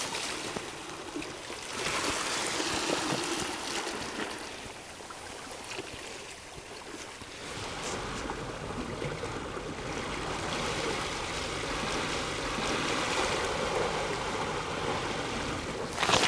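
Seawater washing against a rocky shore, a steady rushing and lapping with no distinct events, a little fuller from about halfway.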